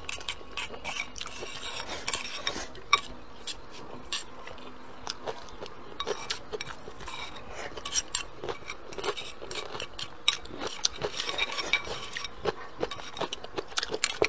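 Chopsticks scraping and clicking against a bowl as the last of the rice is gathered up: an irregular run of small taps and rasps.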